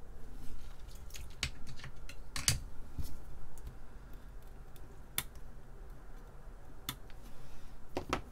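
Small flush-cut side cutters snipping excess component leads off the solder side of a circuit board: a string of sharp clicks at uneven intervals, the loudest about two and a half seconds in, with a quick pair near the end.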